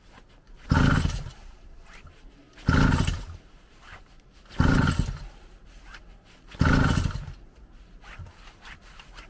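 Small two-stroke engine of a motorised mountain bike being pull-started cold with the choke on: four tugs on the recoil starter about two seconds apart, each turning the engine over for about a second and fading without the engine catching.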